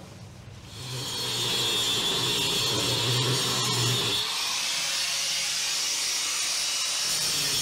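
Corded angle grinder starting up about a second in and grinding along the floor of a boat's freezer enclosure; about four seconds in its whine shifts higher.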